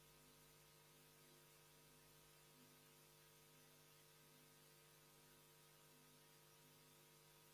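Near silence: a faint steady electrical hum with low hiss.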